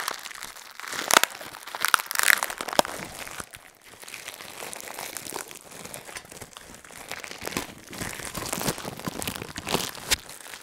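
Clear plastic bag crinkling and crackling as an insulated double-wall mug is unwrapped from it by hand, with irregular sharp crackles that are loudest in the first few seconds and a short lull before more crinkling.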